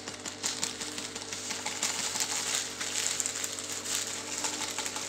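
Plastic zip-lock freezer bag crinkling and crackling in the hand as frozen parsley is shaken out of it, over a steady low hum.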